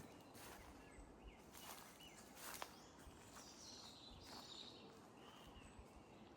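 Near silence outdoors: faint, scattered bird chirps and a few soft footsteps.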